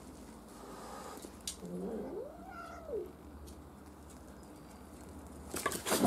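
A domestic cat gives one drawn-out yowl that rises and then falls in pitch, a warning aimed at a dog. Near the end comes a loud, sharp hiss.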